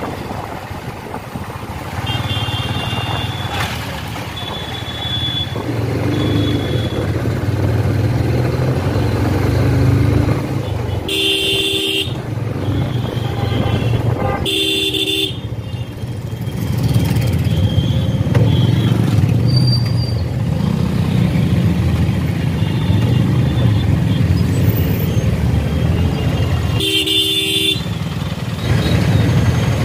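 Motorcycle running steadily through town traffic, with the engine and road noise under three loud horn honks, each lasting about a second or less, spread through the stretch. Fainter horns from other traffic sound a few seconds in.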